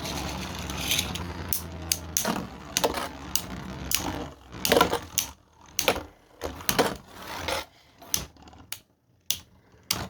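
Irregular sharp clicks and knocks of hard plastic: 3D-printed beyblade tops being handled and readied for the next launch. A steady low hum fades out about two seconds in.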